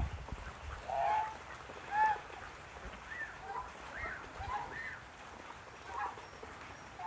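Lionhead geese honking: a string of short calls, eight or nine in about seven seconds, the loudest two about one and two seconds in.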